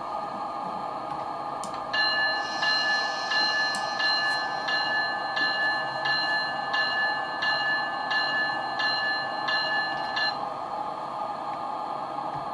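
Locomotive bell sound from an ESU LokSound 5 Fx sound decoder, played through a model cab car's small speaker. It starts about two seconds in and rings evenly, about three strikes every two seconds, for roughly eight seconds over a steady hum.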